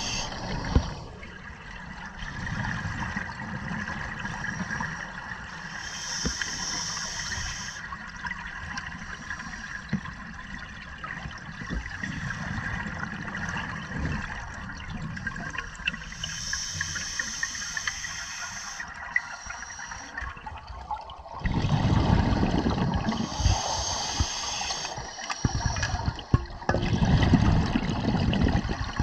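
Scuba diver breathing through a regulator underwater: a hiss on each inhalation every several seconds, and from about two-thirds of the way in a loud gurgling rush of exhaled bubbles.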